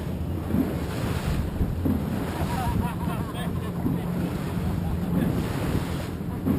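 Wind buffeting the microphone and choppy water splashing around a motor tender, over the steady low hum of its engine.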